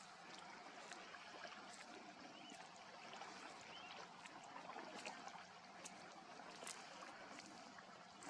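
Faint riverside ambience: water lapping and trickling, with many small ticks and a few faint short chirps.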